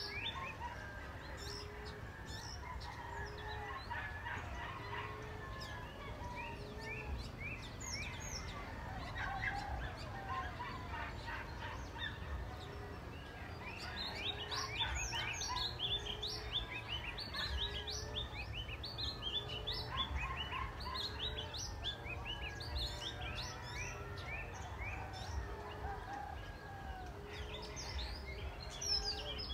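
Emerald dove cooing: a steady series of low, short coos a little over a second apart. Many quick high chirps and whistles from other small birds run over it.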